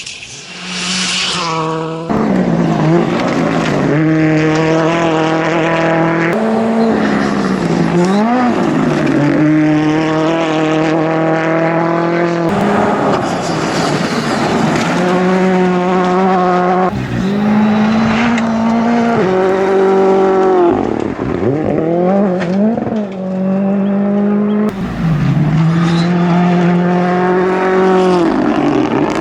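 WRC 2 rally cars driven hard: engines held at high revs, the note dropping and climbing again at each quick gear change, with some tyre squeal. The sound changes abruptly several times, as from one car or pass to the next.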